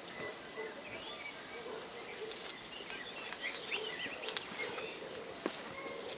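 Outdoor ambience with small birds chirping and twittering over a steady background hiss, and a few faint clicks.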